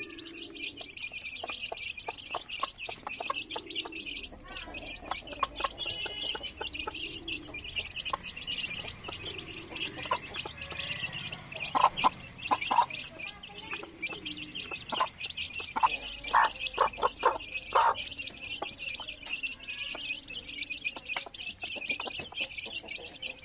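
Chickens clucking softly over a steady high-pitched chirring chorus, with brief sharp bird calls loudest around the middle and again a few seconds later.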